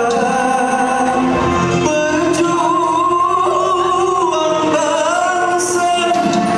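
Nasyid vocal group singing in parts, with a long held note that wavers about a third of the way in.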